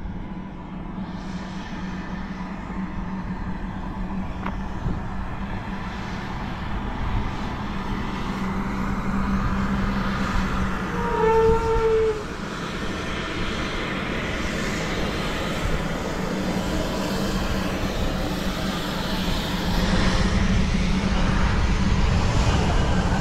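Steady vehicle engine and road noise, slowly growing louder, with one short horn blast about eleven seconds in.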